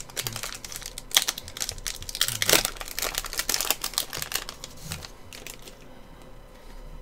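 Foil-lined trading card pack being torn open and crinkled by hand, a dense crackling that dies down after about five seconds.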